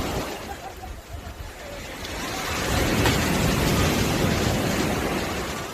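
Sea waves breaking on a beach: the surf swells up about two seconds in and washes out near the end, over a low rumble of wind on the microphone.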